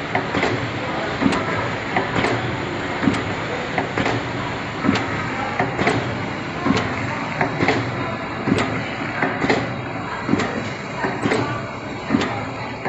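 Paste filling machine running, a sharp knock about once a second from its filling stroke over a steady mechanical noise.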